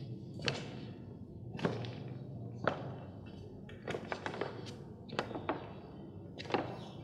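Scattered sharp knocks and taps, about nine, at irregular intervals over a faint low steady hum.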